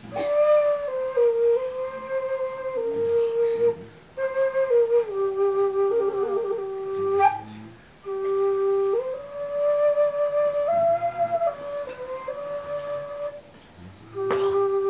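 A flute playing a slow melody of long held notes that step up and down, in phrases broken by short pauses for breath, with a quick trill in the middle.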